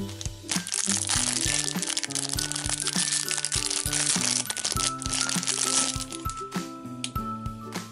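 A clear plastic wrapper crinkling as it is pulled off a small plastic comb, from about half a second in until about five seconds in, over background music.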